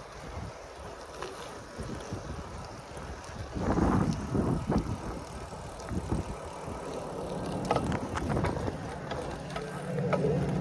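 A bicycle riding over wet pavement: tyre and road noise with small clicks and rattles, and wind on the microphone. There is a louder stretch of rumbling about four seconds in, and a steady low hum near the end.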